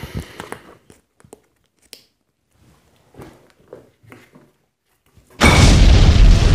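Faint, scattered rustles and small clicks of hands handling a rubber chicken and fixing it to a wall, then, about five seconds in, a sudden loud explosion sound effect with a deep boom.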